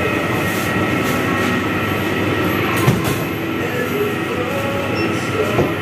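Steady din of a busy fast-food restaurant counter: a constant rumbling hum with faint steady tones over it, and a single sharp click about three seconds in.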